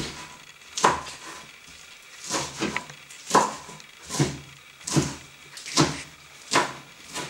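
Kitchen knife chopping spinach on a plastic cutting board: a sharp knock of the blade on the board about once a second, eight strokes in all.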